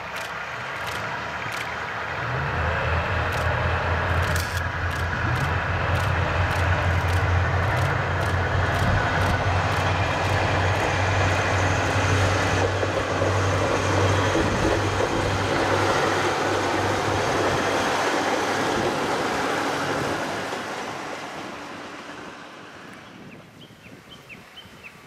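Kominato Railway KiHa 200 diesel railcar passing: the low drone of its diesel engine builds about two seconds in and holds along with the rumble of the wheels on the rails, then fades away over the last few seconds. Faint bird chirps follow near the end.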